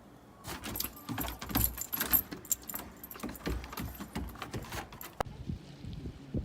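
Metallic jingling and clinking, a rapid jumble of small clicks with a high ringing edge, that stops suddenly about five seconds in.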